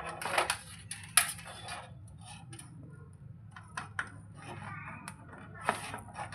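Small hard plastic clicks, taps and rustles of RGB cables and connectors being handled and pushed onto their header inside a PC case, with the loudest clicks just after the start and about a second in, over a steady low hum.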